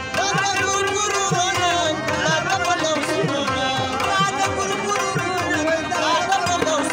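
Live Pashto folk music: a rabab and a harmonium play a bending melody over a steady tabla beat, whose low drum strokes glide down in pitch.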